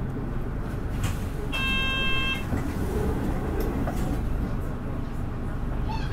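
Nissan Diesel Space Runner RA city bus (PDG-RA273MAN) running, heard from inside: a steady low engine and road rumble. About a second and a half in comes a short electronic chime of several steady high tones, lasting under a second.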